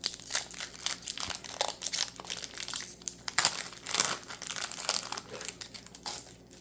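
Foil Pokémon booster pack wrapper crinkling and crackling as it is handled and opened, in irregular bursts that die away near the end.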